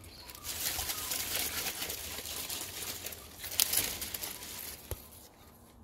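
Dry rustling and crinkling of popcorn plant leaves as a hand pushes in between the stalks and grips one, with a louder rustle a little past halfway and a small click near the end.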